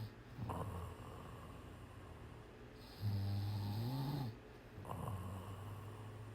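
Snoring in a slow, even cycle. A loud buzzing in-breath lasts over a second and rises in pitch at its end, with softer, rasping out-breaths between.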